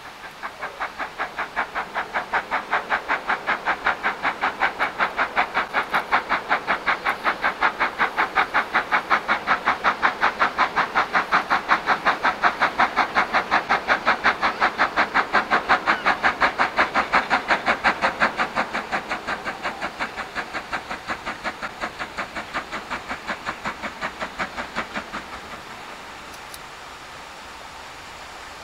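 Steam locomotive exhaust: a rapid, even run of beats that grows louder, drops back about eighteen seconds in, and stops abruptly about twenty-five seconds in.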